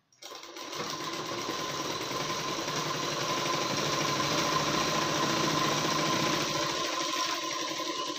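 Domestic straight-stitch sewing machine running steadily, its needle stitching a seam through the layered blouse fabric. It starts just after the opening and eases off near the end.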